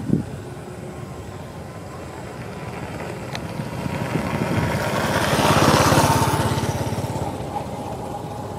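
A motor vehicle passing by: its engine grows louder to a peak about six seconds in, then fades away.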